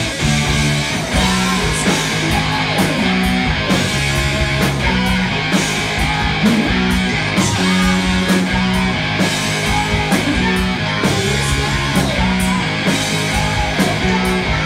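Heavy metal band playing live: distorted electric guitars, electric bass and drums, with a male singer's vocals over them.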